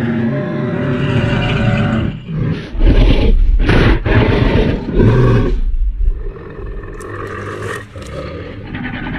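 Giganotosaurus film sound effects: a low, rough growl, then a string of loud roars from about three to five and a half seconds in, easing into quieter growling.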